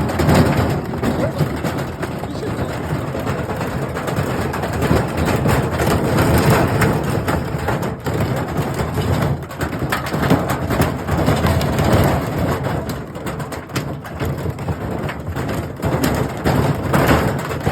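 Washing machine running with hard loose objects inside, a continuous loud rumble full of irregular knocking and clattering as they tumble against the drum.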